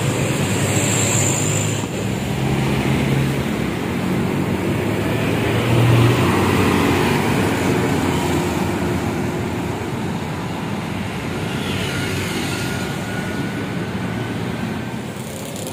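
Road traffic with a coach bus's diesel engine running and pulling away, and motorbikes passing.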